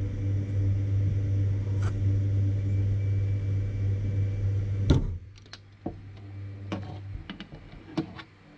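Steady low electrical hum from the 3D printer while its hot end is held at temperature, cutting off with a sharp click about five seconds in. After it, faint scattered clicks of needle-nose pliers working metal parts in the extruder.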